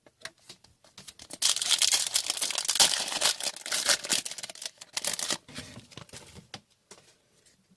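Foil trading-card pack wrapper being torn and crinkled, dense crackling that starts about a second and a half in and lasts about four seconds, followed by a few light clicks of cards being handled.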